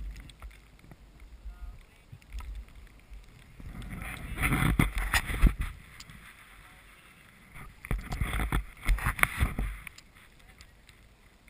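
Wind gusting over a helmet camera's microphone, a low buffeting rumble with crackles in two loud bursts, the first about four seconds in and the second about eight seconds in.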